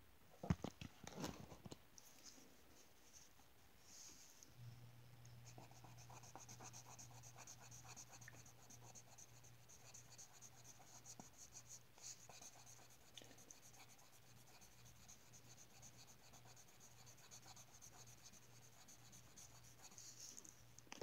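Felt-tip marker rubbing and scratching on paper in short strokes as a drawing is coloured in, faint. A few sharp knocks in the first two seconds, and a steady low hum from about four and a half seconds in.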